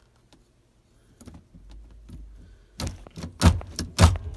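B&M aftermarket gear shifter worked by hand through its gates: a few faint clicks, then three or four sharp metallic clunks in the second half as the lever drops into its detents. The repaired lockout is shifting properly.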